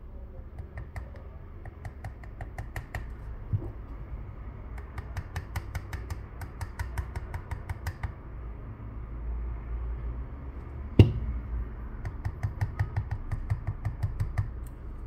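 Runs of faint, rapid ticking and small clicks from handling a phone clamped in a screen-separator tool. One sharp click, the loudest sound, comes about eleven seconds in.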